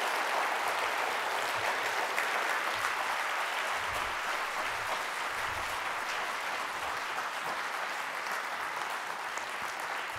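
Audience applauding steadily after a keynote talk, easing off slightly in the second half.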